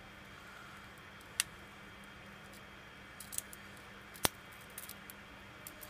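Cracked touchscreen digitizer glass of a Samsung Galaxy Ace 3 being peeled off the phone's frame by hand, giving a handful of sharp clicks and small crackles as the adhesive lets go; the two loudest snaps come about a second and a half and about four seconds in. A faint steady hum lies underneath.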